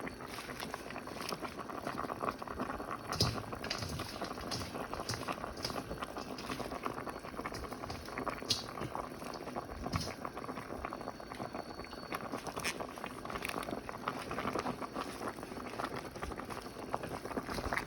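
Pot of chicken soup with zucchini and chili leaves boiling: steady bubbling with occasional sharper pops.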